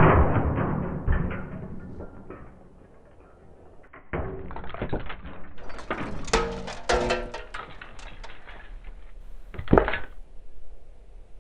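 The clattering tail of a smash dies away, then after a short lull comes a run of sharp knocks and clatters with one strong hit near the end: cooking apples fired from an apple cannon striking a MacBook Pro, with pieces knocking about.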